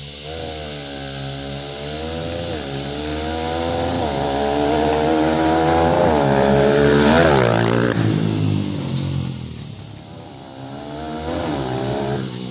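Motorcycle engine revved through a Prospeed RX series aftermarket exhaust, climbing in several short blips to a high rev about seven seconds in, then dropping back and revved again near the end.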